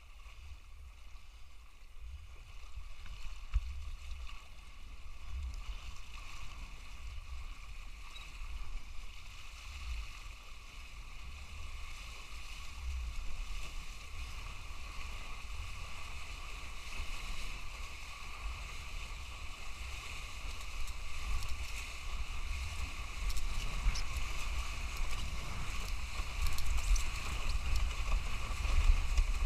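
Wind rumbling on the microphone over water sloshing, with a steady high-pitched hum underneath; it grows louder toward the end.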